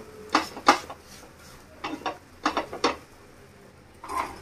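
Spatula scraping and knocking against a non-stick frying pan while stirring scrambled egg, in irregular sharp strokes: two near the start, a quick cluster around the middle and one more near the end.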